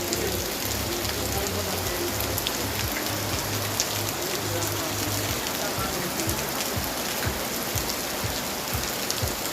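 Heavy rain falling hard, a steady hiss with many separate drops ticking close by. A low rumble runs under it through the first half.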